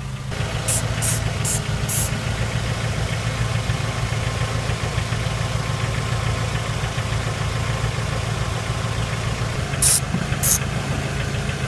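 1998 Toyota RAV4's four-cylinder engine idling steadily, its tailpipe partly blocked by a rag to build back pressure for an exhaust-leak check. Over it, a spray bottle squirts soapy water onto the repaired oxygen-sensor flange: four quick sprays in the first two seconds and two more near the end.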